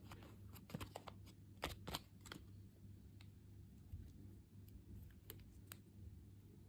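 Faint, scattered light clicks and taps, several close together in the first couple of seconds and sparser after, over a low steady hum.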